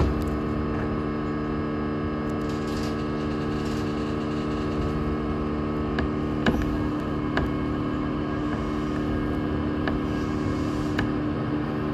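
Steady electrical hum made of several unchanging tones inside the driver's cab of a Keihin-Tohoku/Negishi Line E233-series electric commuter train rolling slowly along the track, with a few light clicks.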